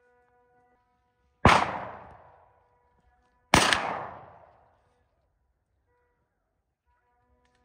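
Two shotgun shots about two seconds apart, fired at running wild boar. Each is a sharp crack whose echo dies away over about a second.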